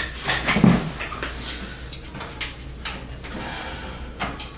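Thin stamped-metal I/O shield being pushed into the rear opening of a steel PC case, rattling and clicking as it snaps into place. The loudest knocks come in the first second, with a few lighter clicks after.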